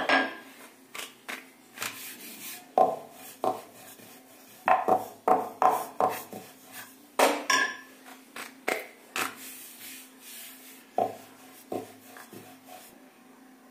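Wooden rolling pin rolling dough out thin on a round wooden board, with irregular knocks and clacks of wood on wood. The knocks stop near the end.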